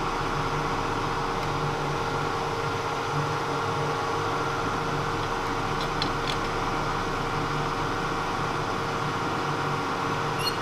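Steady machine hum from the Kearney & Trecker milling machine running without cutting, its motor and drive holding a fixed pitch. A few light metallic clicks about six seconds in and a short ringing tick near the end.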